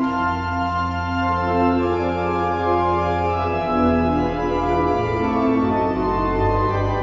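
A 1928 Cavaillé-Coll-Convers pipe organ playing slow, sustained chords over a held pedal bass in an improvised adagio, the chords changing every second or two.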